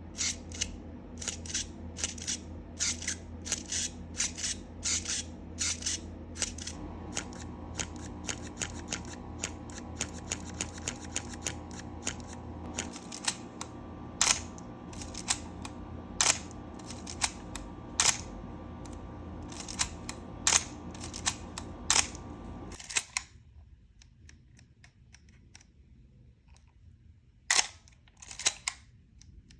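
Canon A-series 35mm SLR fired over and over, each shutter release a sharp click drawn out into the squeaky cough these cameras are known for. That cough is commonly put down to a dried-out mirror mechanism. A steady low hum in the background stops about two-thirds of the way through.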